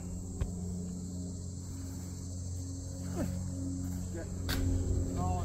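Insects chirring in a steady high-pitched drone, over a low steady hum.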